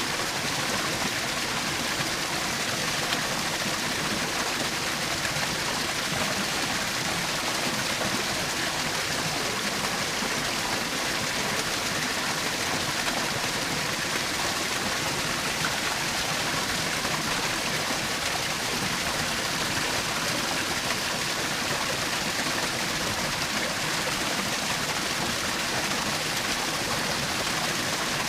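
Small waterfall in a forest stream, water splashing and rushing steadily without a break.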